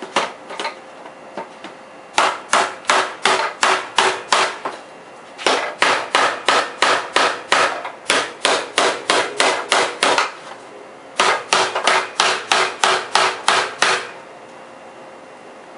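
Plastic VW Mk4 centre armrest lid being banged hard and fast against its replacement hinge, sharp clacks about four a second in three long runs with short pauses between them. The hinge holds.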